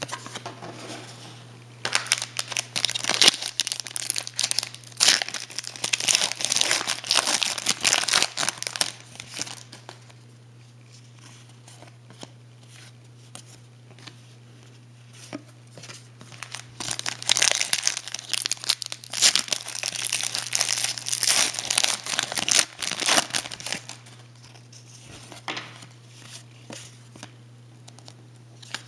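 Trading-card pack wrapper crinkling and tearing, with cards being handled, in two long stretches of dense crackling and quieter rustling between them. A low steady hum runs underneath.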